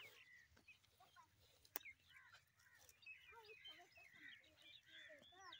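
Faint chorus of many short bird calls, overlapping and growing busier about halfway through, with one sharp click a little under two seconds in.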